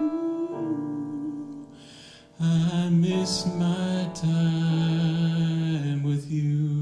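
Slow ballad accompaniment on piano and electric keyboard, with sustained chords. The music drops away briefly about two seconds in, then fuller held chords come back.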